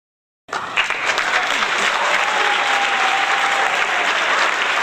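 Crowd applause, starting abruptly about half a second in and holding steady and loud, with voices mixed in.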